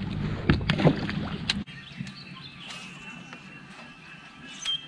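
Open-air sound on a bass boat: a low wind rumble on the microphone with a few sharp knocks. About a second and a half in it cuts off abruptly to a quieter stretch with faint high chirps and light ticks.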